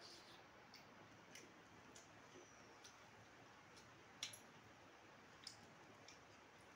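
Near silence with a few faint, scattered clicks from eating chaat out of a steel bowl with a spoon, the sharpest one about four seconds in.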